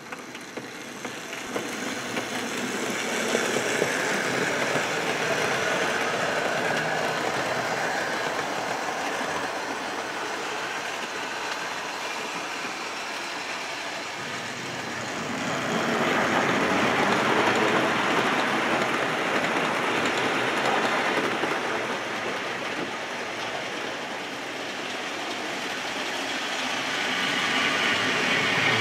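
OO gauge model Britannia locomotives and their trains running on the layout's track: a steady whirr and rumble of electric motors and wheels on rail. It builds over the first few seconds and swells again about sixteen seconds in as another train passes close.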